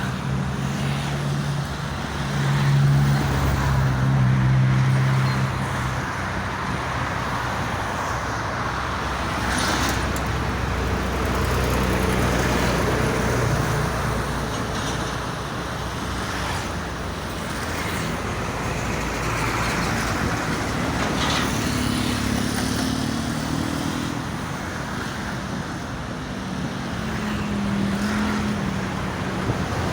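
Steady toll-road traffic noise as vehicles pass, with a heavy vehicle's engine drone loudest a few seconds in and fainter engine hums later on.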